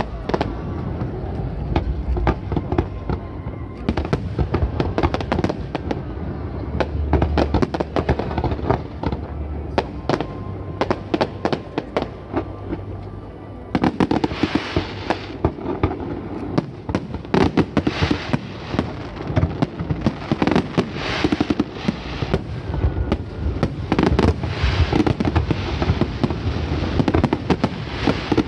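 Aerial fireworks display: a rapid, continuous barrage of shell bursts and crackling. About halfway through, a denser, louder volley starts.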